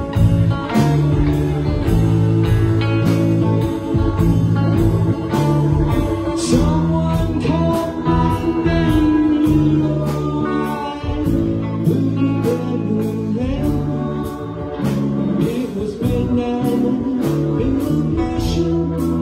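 Live rock band playing a slow song: electric guitar, bass guitar, keyboards and drums, with a steady drum beat.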